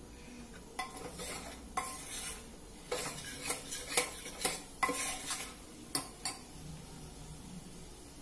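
Metal spoon stirring spiced masala in a pressure cooker: about a dozen irregular clinks and scrapes of the spoon against the pot, stopping about six seconds in. The spices are being fried.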